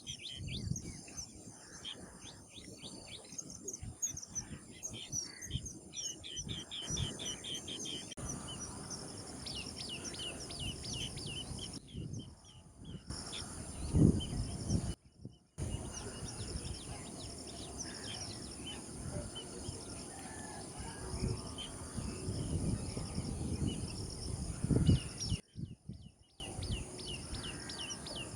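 Birds giving quick series of short, high chirps over a steady high insect buzz and low background rumble, with two louder low thuds partway through. The sound cuts out briefly three times.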